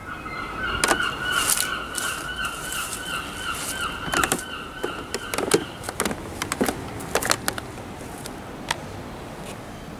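Sharp knocks, clicks and rustles of a handheld camera being handled and moved about. Under them, a steady high tone with a regular wobble runs for about the first five and a half seconds.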